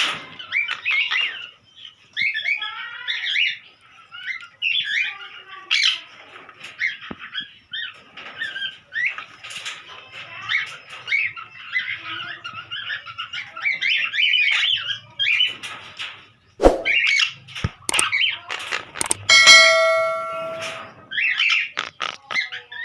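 A colony of small parrots, sun conures and monk parakeets, chattering and calling continuously in short chirps and squawks. A few sharp knocks come about 17 s in, and near the end a held, ringing tone sounds for about a second and a half.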